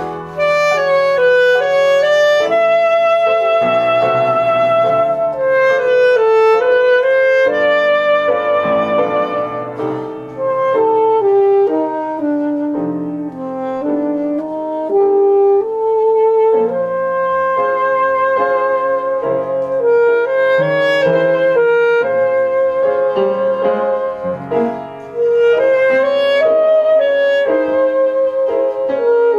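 Saxophone playing a slow melody of held and gliding notes, accompanied by an upright piano.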